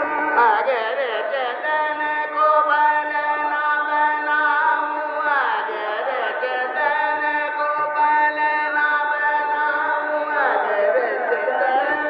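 Male Hindustani classical vocal in raag Lalit over a steady drone, with three fast runs of notes gliding up and down about five seconds apart.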